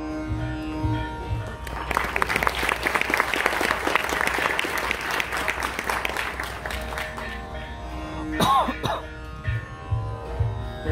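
Audience applause for about five seconds, starting about two seconds in, over the steady tanpura drone. A bowed violin note ends just before it, and near the end a violin slides up and down in pitch with a few low mridangam strokes.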